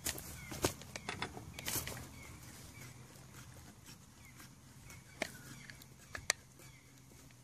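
A few sharp knocks and clicks, bunched in the first two seconds with two more later, from the mower tyre and rim being pressed under the caravan's weight to break the bead. A bird chirps over and over behind them.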